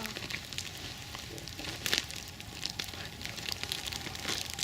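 Campfire crackling: irregular snaps and pops of burning wood, with a sharper pop about two seconds in.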